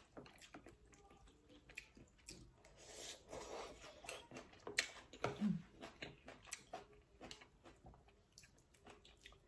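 A person eating noodle soup at close range: chewing with wet mouth clicks, and a longer slurp about three seconds in. A short hum from the eater comes about halfway through.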